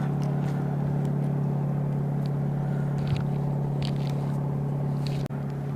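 Boat motor running with a steady low hum, with a few faint ticks and taps over it.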